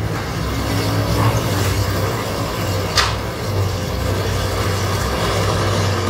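Crawler excavator's diesel engine running steadily under load, with a single sharp clank about three seconds in.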